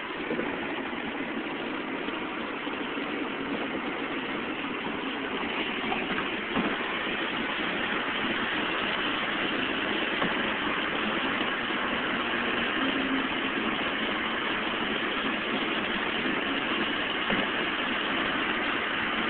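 Steady road and wind noise inside a car travelling at highway speed, a continuous rushing hiss that grows slightly louder over the first several seconds.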